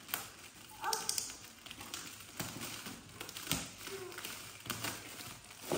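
Scissors snipping at plastic packaging, with the plastic crinkling: a few separate snips and rustles spread out, and a short bit of voice about a second in.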